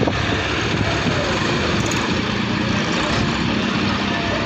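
John Deere 5310 tractor's three-cylinder diesel engine running steadily.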